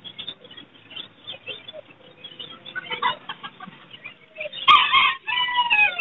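A rooster crowing loudly about four and a half seconds in: a sharp first note, a brief break, then a long note that falls slightly in pitch. Before it there are only faint scattered bird sounds.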